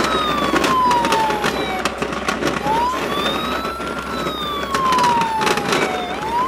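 Wailing ambulance siren, sliding slowly up and down about once every four seconds, with scattered clicks and rattles from the plastic toy ambulance being pushed along.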